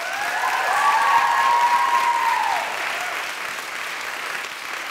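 Audience applauding after a speech, loudest about a second in, with a drawn-out whoop from the audience over the first two or so seconds.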